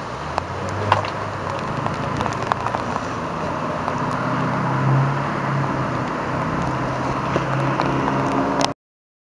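Steady rush of the flood-swollen Hoosic River, with a road vehicle's engine passing, loudest about halfway through, and a few light clicks. The sound cuts off suddenly near the end.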